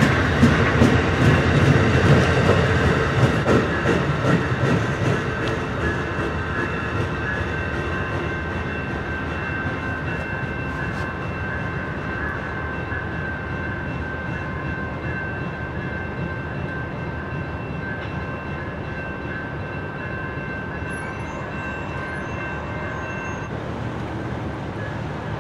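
Amtrak Superliner passenger train rolling past, its wheels clacking sharply over the rail joints and crossing at first, then the rumble fading steadily as it pulls away. A grade-crossing bell rings evenly throughout while the crossing signals are active.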